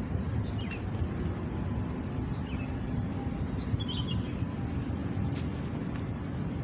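Outdoor ambience: a steady low rumble, with a few faint, short bird chirps.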